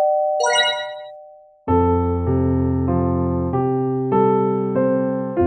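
Background music: a couple of bell-like notes that ring and fade away, then keyboard chords starting about a second and a half in, moving to a new chord every half second or so.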